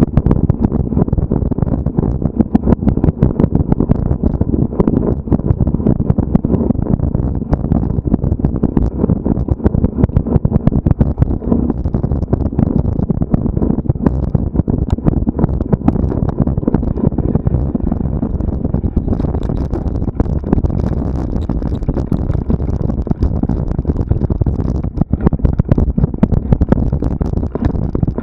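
Heavy low rumble of wind and motion on a moving camera's microphone, with many small knocks and rattles throughout.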